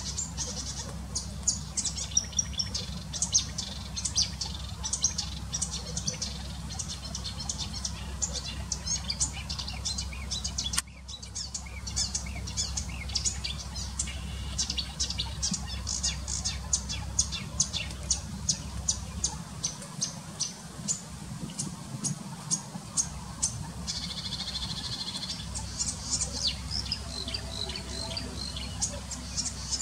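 An Acrocephalus warbler, which the uploader takes for a marsh warbler or a Eurasian reed warbler, singing a fast, continuous stream of high chattering and trilled notes, several a second. There is a brief break about eleven seconds in. A low steady hum runs beneath.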